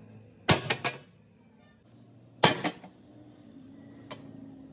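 Two sharp metallic clanks on sheet steel about two seconds apart, each followed by a quick short rattle, over a faint steady low hum.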